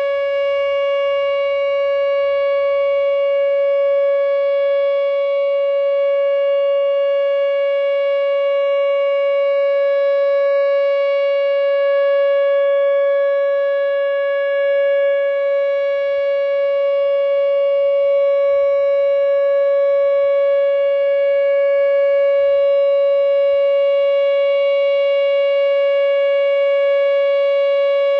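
Whelen WPS 2908 electronic outdoor warning siren sounding a loud, steady single tone with no rise or fall in pitch, the tornado warning signal being tested in a drill.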